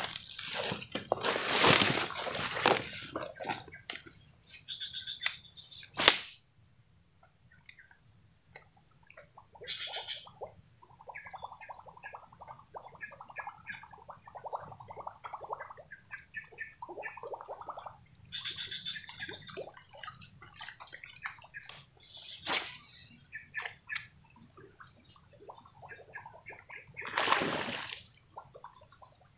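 Birds chirping over a steady high insect drone, with rustles and sharp clicks as a lure is cast and reeled in on a baitcasting rod; a single loud click about six seconds in is the loudest sound.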